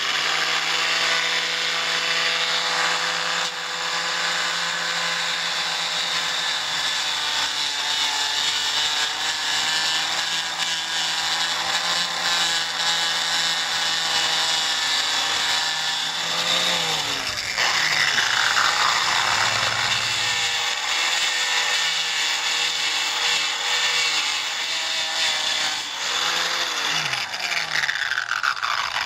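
RotoZip Rebel rotary tool with a heavy sanding disc grinding into a fiberglass boat hull and its bottom paint: a steady high motor whine over the hiss of the disc on the surface. The pitch dips briefly and recovers twice, about two-thirds of the way in and again near the end.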